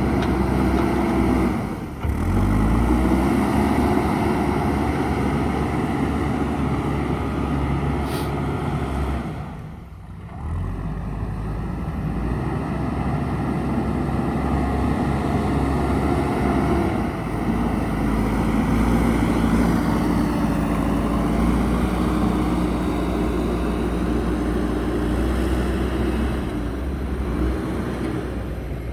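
Diesel engine of a JCB backhoe loader running under load and revving up and down as it works, briefly dropping away twice, about two and ten seconds in.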